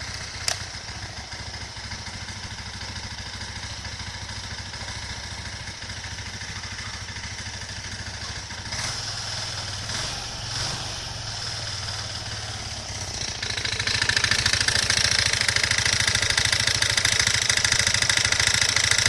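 A 2007 carbureted Suzuki GSR125's single-cylinder engine running steadily with the abnormal noise the owner is showing. About 13 seconds in the sound grows louder and brighter, with more high-pitched mechanical noise, and stays that way to the end.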